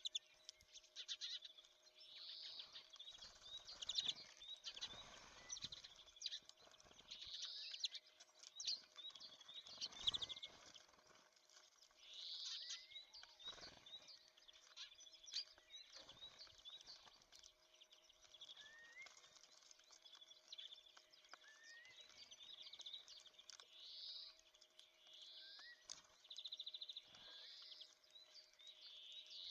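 Faint, repeated chirps and short rapid trills of small songbirds, with a few brief rising call notes. There are occasional soft knocks and a faint steady hum underneath.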